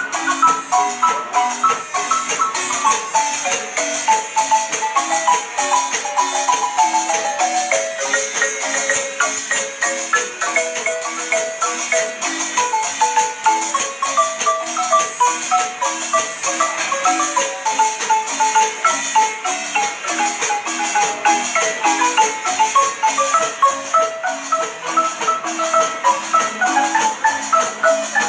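A large wooden Guatemalan marimba played with mallets by three players. A lively melody in quick runs of notes goes over repeated lower accompanying notes, without a break.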